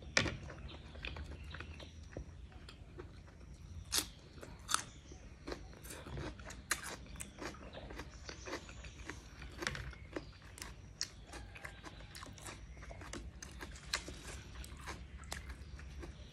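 Close-miked chewing of a sausage: a steady run of wet mouth clicks and smacks, with a few sharper bites just after the start and about four and five seconds in.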